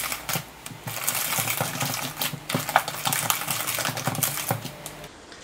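Wire whisk scraping and clinking against a stainless steel mixing bowl as thick brownie batter is stirred by hand, with irregular knocks and a wet sloshing texture; it stops about five seconds in.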